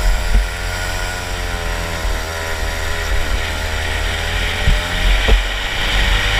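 Rotax Max 125cc single-cylinder two-stroke kart engine running at high revs on track, its note dipping slightly mid-way and climbing again, with a heavy low rumble and a few short thumps.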